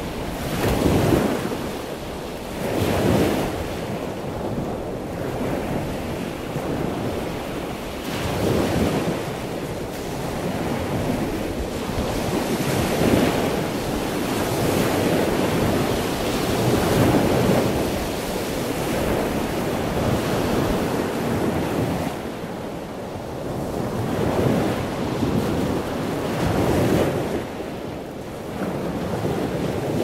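Small waves washing in and out, a continuous rush of water that swells and falls back in irregular surges a few seconds apart.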